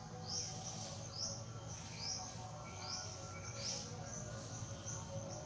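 Forest ambience with a bird repeating a short, high, falling chirp about once a second over a steady background.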